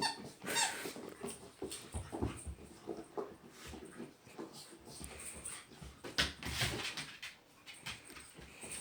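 Dog playing with a squeaky rubber toy: irregular short squeaks and soft knocks, with a longer, louder squeal a little after six seconds.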